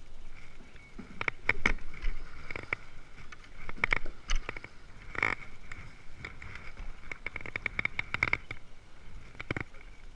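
An oar being worked by hand on a small boat: irregular knocks and clunks of the oar against the boat, in clusters of a few strokes at a time.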